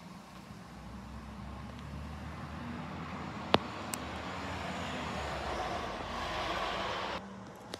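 Garbage truck's diesel engine running down the street, a low rumble that grows louder as it comes nearer. A single sharp knock sounds about three and a half seconds in, and the noise drops off suddenly near the end.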